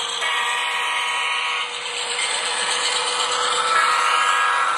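Model diesel locomotives running past on the layout, giving a steady electronic engine drone with several held tones under the rumble of the moving train.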